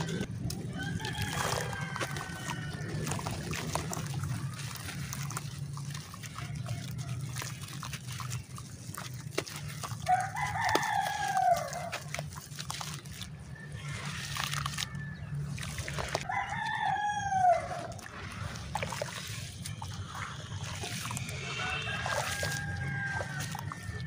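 Water sloshing in a plastic basin as hands knead and crumble wet clay, over a steady low hum. Two loud, drawn-out animal calls come about ten and seventeen seconds in, with fainter calls near the start and near the end.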